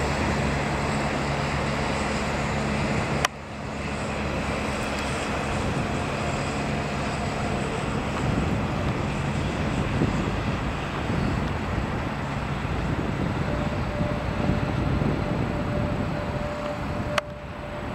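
Steady rumble and hum of electric passenger trains moving through a station, with a faint steady whine joining near the end. The sound cuts abruptly about three seconds in and again near the end.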